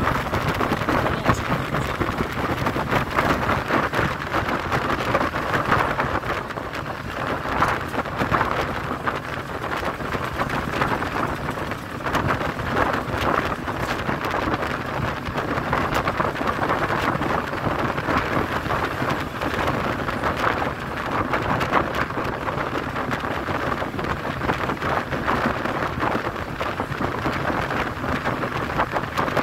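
Steady road and engine noise of a moving bus, with wind rushing in through the open window.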